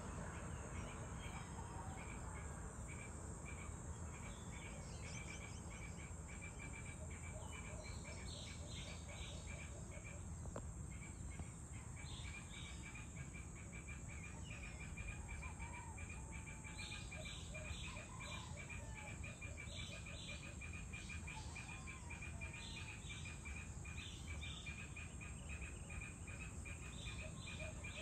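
An evening chorus of insects: a continuous high-pitched, rapidly pulsing trill over a steady high hiss, with short bird chirps and calls now and then.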